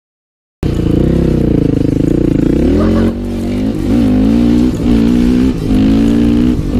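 Dirt bike engine under way, its note rising and falling with the throttle; it starts abruptly about half a second in.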